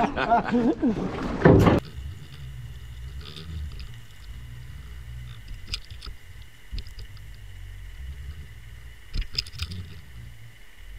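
Voices on the boat for the first two seconds, then a sudden switch to the muffled sound of a camera underwater: a low water rumble with a faint steady high hum and a few scattered clicks and knocks, a short cluster of them about nine seconds in.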